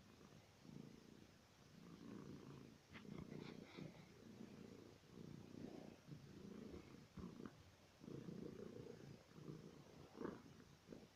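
Domestic cat purring softly while being petted, in a series of pulses about a second long, one per breath. A few faint rustles sound over it.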